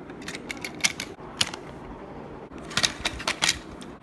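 Irregular sharp clicks and clacks of small hard objects: a few scattered through the first second and a half, then a quick cluster about three seconds in.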